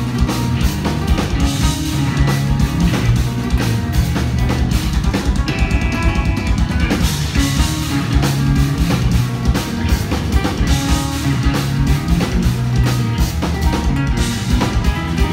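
Instrumental progressive metal played live at full volume: two electric guitars over dense, rapid drumming on a full drum kit.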